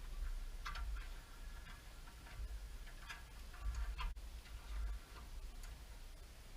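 Irregular light clicks and taps of a steel brake line and its fittings being handled and bent into place, a few sharper ones about 0.7 s, 3 s and 4 s in, over a faint low rumble.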